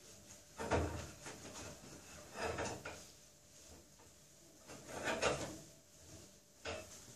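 A towel rubbing against the outside of a metal pot lid in a stainless-steel sink: three scrubbing strokes a couple of seconds apart.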